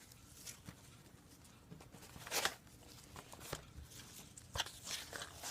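Faint paper rustling and crinkling as a handmade paper journal is handled, with a few louder brushes of paper about two and a half and four and a half seconds in.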